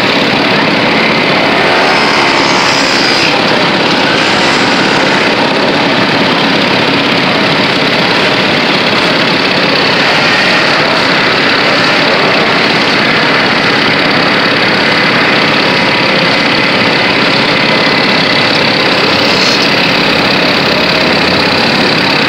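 A crowd of small two-stroke moped engines idling and running together: a loud, steady, continuous engine din.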